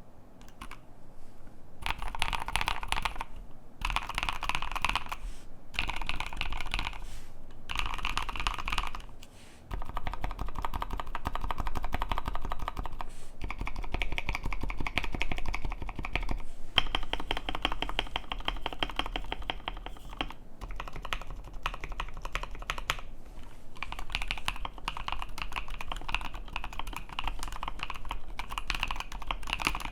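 Fast typing on a stock KBD67 Lite R3 mechanical keyboard with a polycarbonate plate, lubed and filmed Novelkey Cream linear switches and Akko ASA-profile keycaps. Short runs of keystrokes with brief pauses in the first ten seconds or so, then near-continuous typing.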